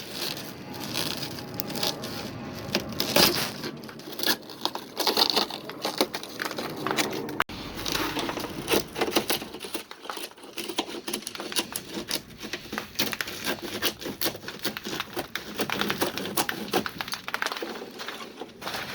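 Chisel scraping and prying broken glass out of a car's rear window frame: a dense, irregular run of crunches, scrapes and clicks.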